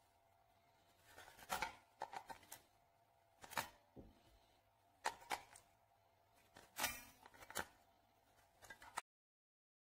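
Short plastic clicks and scrapes of 18650 lithium-ion cells being pulled out of and pushed into the spring-contact bays of a four-bay plastic battery charger, about eight separate knocks.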